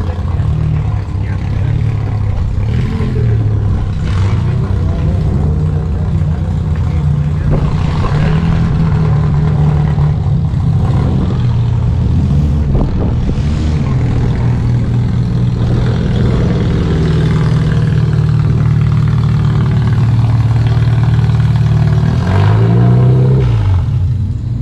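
Demolition derby car engine running loudly and steadily, revving up and back down once near the end.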